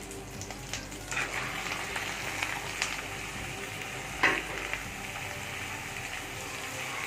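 Raw chicken pieces sizzling as they go into hot oil with browned onions and ginger-garlic paste in a pot, with a sharp knock about four seconds in.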